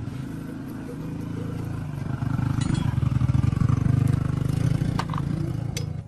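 An engine running with a fast, even low beat, growing louder toward the middle, then cutting off suddenly at the end.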